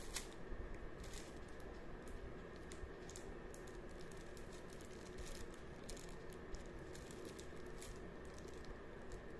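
Faint, scattered clicks and crinkles of fingers handling a cardboard pen box in plastic shrink-wrap, over steady background noise.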